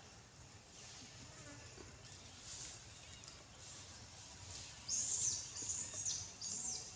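Faint outdoor background. About five seconds in, a run of short, high-pitched squeaky animal calls starts, each rising and falling, and goes on for a second or two.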